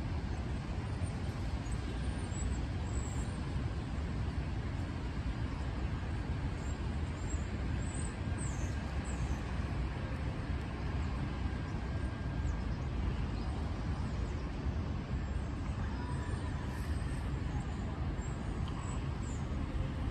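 Steady downtown street traffic on rain-wet roads: a constant low rumble of cars and buses under an even hiss.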